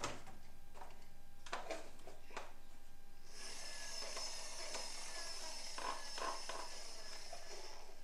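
Plastic toy vehicles clicking and knocking against each other in a cardboard box as one is handled and lifted out. From about three seconds in, a steady high hiss runs for several seconds, with a few more light knocks under it.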